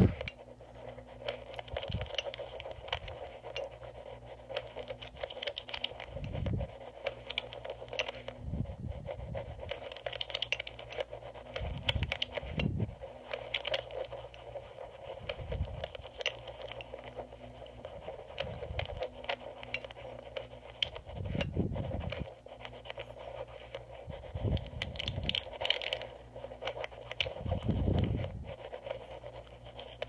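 Amplified scraping and small clicks of a lock pick working the rotors inside an EVVA MCS magnetic lock, picked up by an amplifier pressed against the lock, while a rotor refuses to set. Short dull low thumps break in every few seconds.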